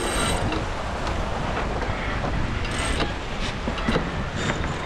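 J/111 sailboat running under spinnaker: a steady rush of wind and water, with scattered clicks and creaks from the deck gear as the sheets work through winches and blocks.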